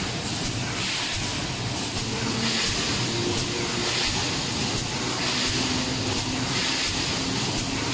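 Automatic pneumatic wire mesh welding machine running through its weld cycles: a steady mechanical din with a hissing burst repeating roughly once a second.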